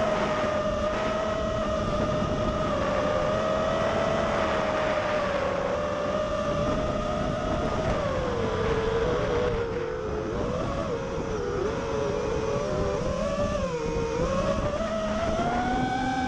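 FPV racing drone's brushless motors and propellers whining, with the pitch wavering as the throttle changes, sagging lower in the second half and climbing again near the end, over a steady rushing noise.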